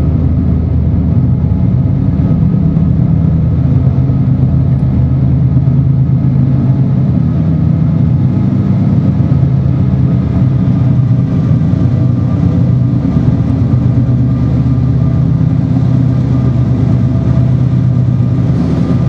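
Diesel locomotive at the head of a slow, heavy freight train climbing toward the grade's summit, its engine working hard under load with a steady, low drone inside the tunnel.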